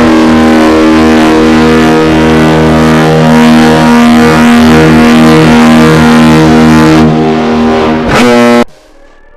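Powerful air-driven warning signal sounding one loud, steady, low tone rich in overtones, which stops abruptly near the end.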